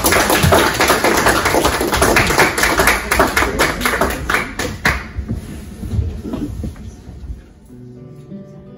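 Congregation applauding, dense clapping that dies away after about five seconds. A low guitar note sounds near the end.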